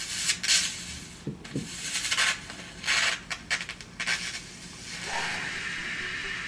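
High-voltage electric arc striking from the coil to a syringe needle, hissing in irregular bursts with a steadier hiss in the last second or so.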